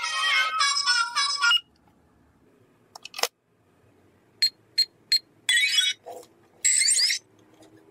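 Toy ATM piggy bank's keypad beeping three times in quick succession as its buttons are pressed, then two short electronic chimes from the box as its green light comes on, the sign that the code has been accepted. Before that, the last of a synthetic children's song is heard, then a single click.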